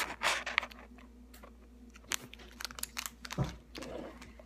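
Scattered clicks, taps and crinkles of a clear plastic ornament being handled right up against the microphone, with one duller knock about three and a half seconds in.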